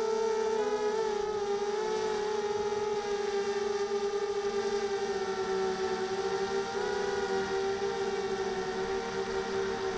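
Quadcopter's four Sunnysky 2204 2100kv brushless motors and propellers whining in flight, heard from the onboard camera: a steady tone whose pitch wavers up and down a little with throttle.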